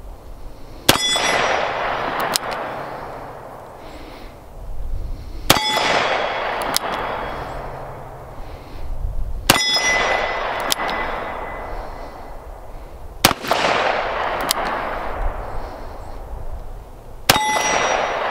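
Taurus Defender 856 .38 Special revolver fired five times, about four seconds apart, each shot followed by the ringing ding of a steel target being hit.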